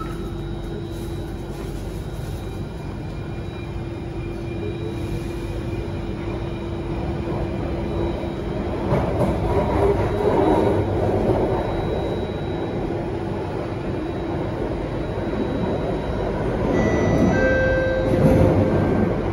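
Alstom Metropolis C830 metro train heard from inside the car as it pulls out of the station and speeds up into the tunnel. A steady hum over the rumble of wheels on rail grows louder and rougher partway through, and a few short high whining tones come near the end.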